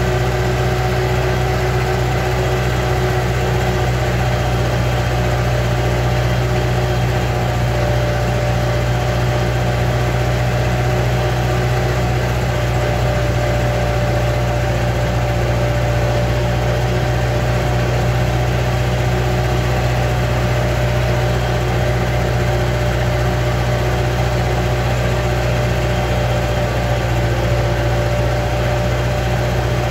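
Vintage tractor engine running steadily under way, a constant low hum with no change in speed.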